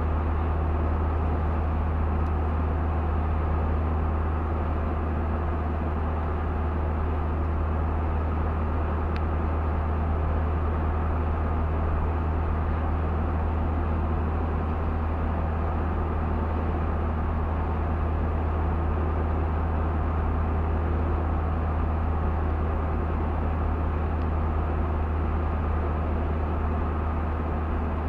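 A car being driven: a steady, unbroken drone of engine and tyre noise with a strong low hum.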